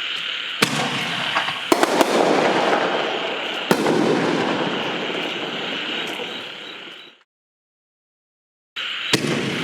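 Aerial canister firework shells firing and bursting: sharp reports about half a second, just under two seconds and nearly four seconds in, over a steady hiss of the display. The sound cuts off abruptly for about a second and a half near the end, then returns with another sharp report.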